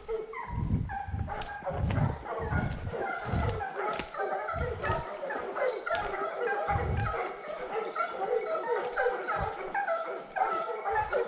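A pack of Fauve de Bretagne scent hounds giving tongue in chorus on a roe deer's trail, many short yelping cries overlapping without a break. Low thuds come under the cries in the first several seconds.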